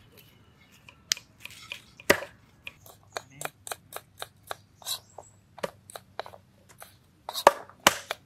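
Irregular sharp knocks and clicks of hands working with food and utensils, a few a second, with louder knocks about two seconds in and near the end.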